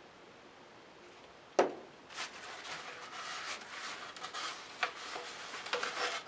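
Paper towel rustling and rubbing against a model rocket's body tube as excess thin glue is wiped off around a freshly glued porthole. Before it, a single sharp knock about a second and a half in.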